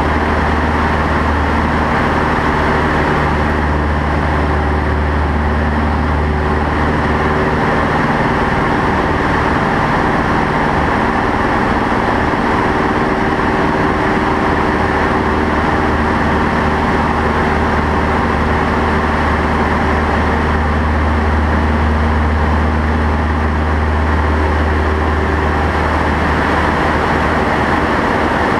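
Light aircraft's piston engine and propeller droning steadily, heard inside the cockpit over heavy airflow hiss during a dive and pull-up; the engine's tone shifts a little about ten seconds in.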